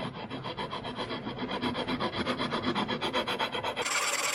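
A Nicholson Magicut curved-tooth file is rasping a wooden axe handle in quick, even strokes, shaping the handle down to fit the axe head. The strokes grow louder and brighter near the end.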